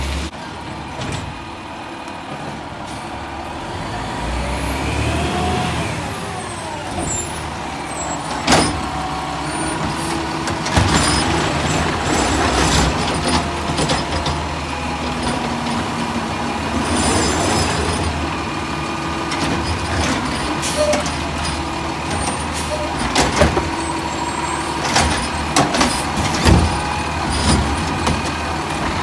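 Diesel Autocar ACX garbage truck with a McNeilus ZR automated side-loader arm: the engine pitch rises and falls as it pulls up, with an air-brake hiss, then the hydraulic arm grabs a wheeled cart, lifts and empties it into the hopper, and sets it back down with repeated knocks and bangs.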